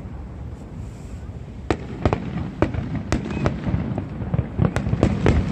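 Aerial fireworks going off: a quick run of sharp bangs begins a little under two seconds in and comes faster toward the end, over a steady low rumble.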